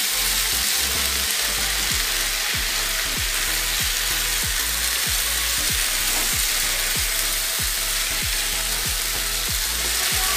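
Sliced bitter melon sizzling steadily as it is stir-fried in a pan and turned with a wooden utensil, with repeated soft low thumps about two or three times a second.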